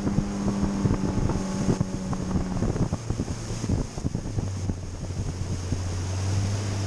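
Outboard motor of a Yamaha 190 FSH centre-console boat running under way, with its steady note dropping lower about halfway through. Wind buffets the microphone and there are irregular knocks of the hull and water.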